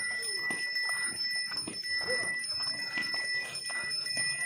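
A small metal bell ringing continuously with a steady high ringing tone, over the chatter of a crowd.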